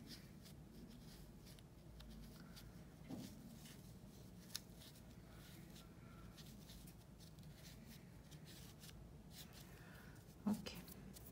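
Faint rustling and light clicks of fibre stuffing being poked into a small crocheted piece with the tips of small scissors. A slightly louder short sound comes near the end.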